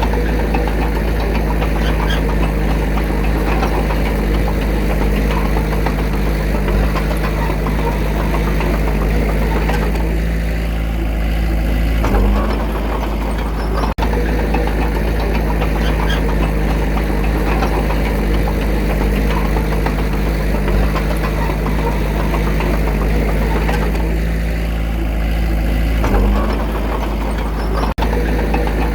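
A small bulldozer's diesel engine runs steadily under load, with a brief change in its note about every fourteen seconds.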